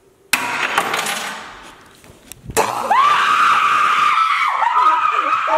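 A woman screaming in fright at a jump scare: one long, high-pitched scream that holds steady, then wavers and breaks near the end. It is set off by a sudden loud burst of noise that fades over about two seconds, followed by a sharp knock.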